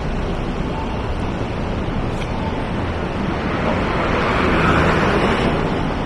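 Street traffic noise from cars on the road alongside the sidewalk, a steady rush that swells about four to five seconds in.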